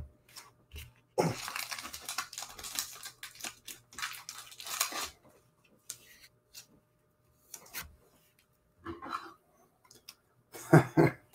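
Trading cards being handled: a crinkly, papery rustle for about four seconds, then scattered light taps and clicks as cards are set down and picked up. A short vocal sound comes near the end.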